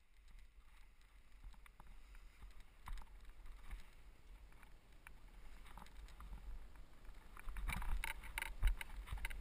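Paragliding launch: low wind rumble on the microphone with scattered rustles and knocks from the wing lines and harness, growing louder and more frequent near the end as the pilot runs downhill for take-off.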